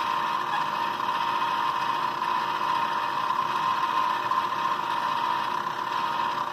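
Klutch benchtop milling machine running steadily, its spindle turning a four-flute end mill with an even, constant whine.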